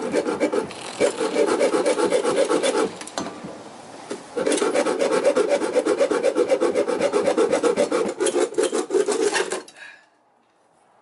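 Small hand hacksaw sawing through the metal refrigerant tubing of a mini-fridge compressor to cut the compressor free, in quick back-and-forth strokes. The sawing pauses for about a second and a half about three seconds in, resumes, and stops shortly before the end.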